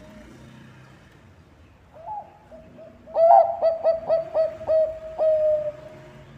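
Zebra dove (perkutut bangkok) song: one short coo about two seconds in, then a quick run of about seven clipped cooing notes that ends in a longer drawn-out note.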